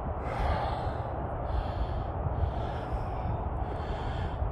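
A man breathing hard, about one breath a second, as he hikes uphill on a steep, icy trail, over a steady low rumble.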